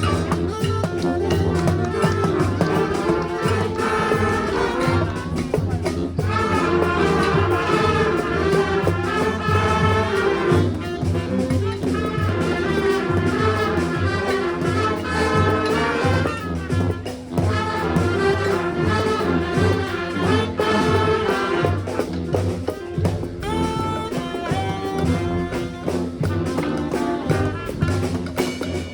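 Brass band playing live: trumpets and trombones carrying the tune over a steady percussion beat.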